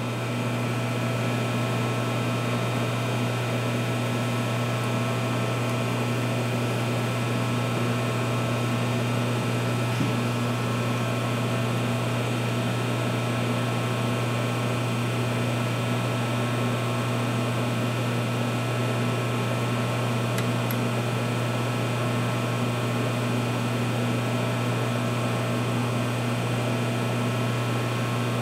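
Steady electric machinery hum: a constant low drone with several fixed tones above it that do not change. There is a faint tap about ten seconds in.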